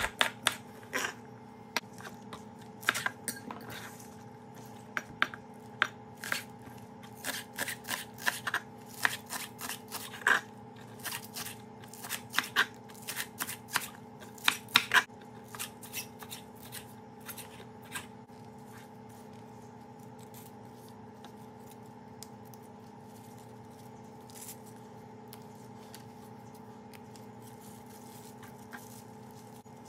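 Kitchen knife chopping spring onions on a wooden cutting board: quick, irregular taps for about the first fifteen seconds, thinning out and stopping a few seconds later. A steady background hum carries on underneath.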